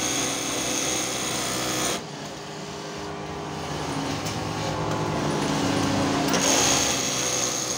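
Industrial lockstitch sewing machine stitching, running at speed with a high whine. It slows to a lower, slower run about two seconds in, then speeds up again past six seconds and stops at the end.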